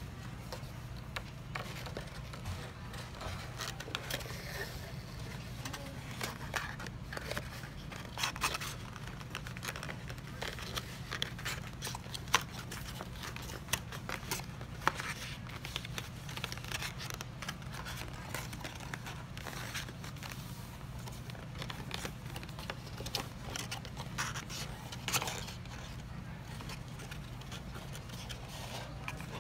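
White paperboard box lid being folded and assembled by hand: scattered scrapes, rustles and light taps as the card flaps are bent, creased and pressed into place against the tabletop, over a steady low hum.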